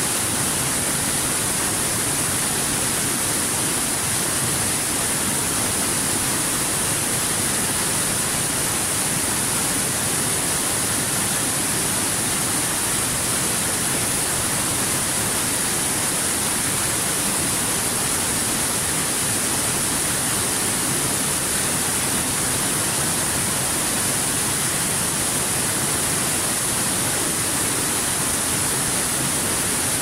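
Small waterfall cascading over boulders into a pool: a steady, even rush of falling and splashing water.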